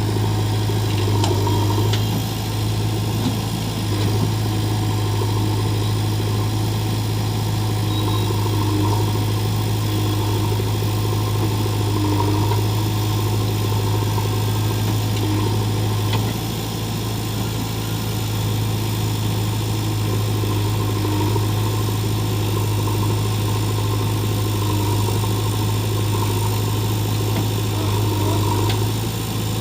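Diesel engine of heavy machinery running steadily, with a strong, unbroken low hum.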